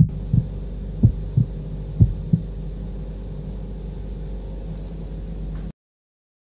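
Steady hum of a compressor nebulizer running, with pairs of dull low thumps about once a second during the first couple of seconds. It cuts off abruptly near the end.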